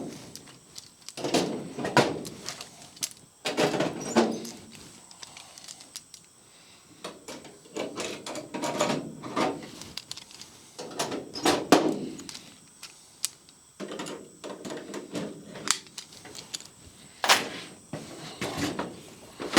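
A drill opening rivet holes in the aluminium wing tip skin up to 1/8 inch for A4 rivets, in short bursts of about a second, one hole after another, with sharp clicks between them.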